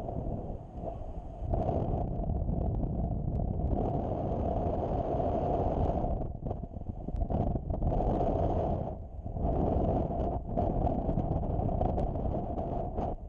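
Wind rushing over the microphone of a camera carried by a paraglider in flight. It is a steady buffeting roar that drops away briefly a few times: about six seconds in, around nine seconds, and again near ten and a half seconds.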